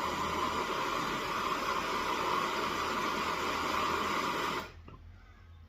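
Handheld gas torch flame hissing steadily as it burns carbon buildup out of a two-stroke trimmer's spark arrestor screen. It shuts off suddenly about three-quarters of the way through.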